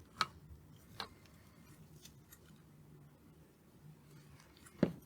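Three short, sharp clicks of small parts or hand tools being handled on a workbench: one just after the start, one about a second in, and a louder one near the end, over a faint steady hum.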